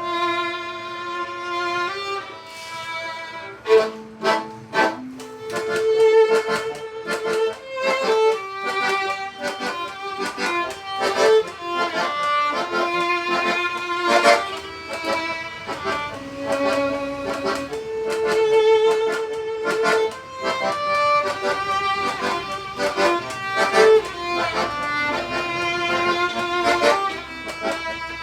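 Live acoustic duo music: a violin playing a melody of held and moving notes, with sharp accented strokes throughout.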